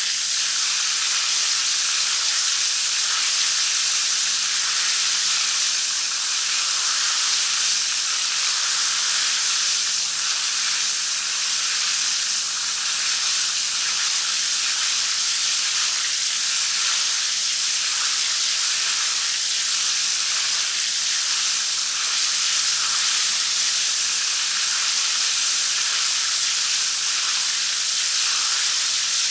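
Shower head spraying water steadily: an even, continuous hiss of falling water with no breaks.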